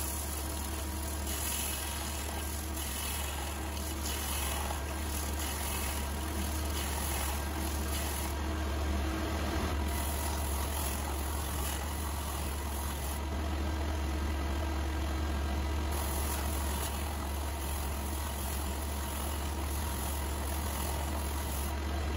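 Benchtop belt/disc sander running with a steady low motor hum, while a steel jointer knife clamped in a wooden jig is ground against the belt; the grinding hiss swells and fades as the knife is slid back and forth. The knife is being reground to a 35-degree primary bevel.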